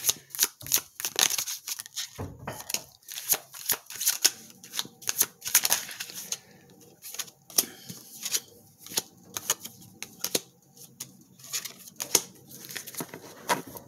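Tarot cards being shuffled and handled: a string of irregular, sharp clicks and slaps of card stock.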